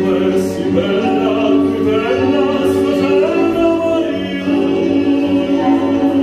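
A male vocalist singing a song through a microphone and PA system over backing music, holding long notes that bend in pitch.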